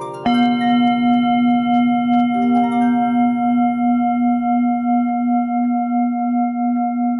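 A singing bowl struck once, ringing on in one long sustained tone with a slow wavering pulse, just as a run of plucked notes dies away.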